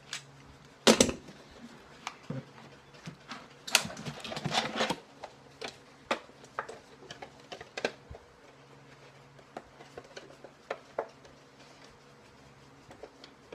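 Thin milk-jug plastic, heat-formed over a resin skull, crinkling and crackling as it is worked loose and pulled off: a sharp crackle about a second in, a longer run of crinkling around four to five seconds, then scattered small clicks.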